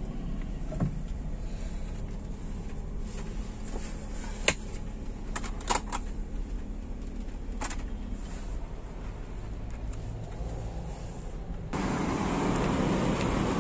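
Toyota Alphard's 2.4-litre engine idling, heard as a steady low hum in the cabin, with a few sharp clicks from the controls being handled. About twelve seconds in, a louder hiss of outside noise joins it.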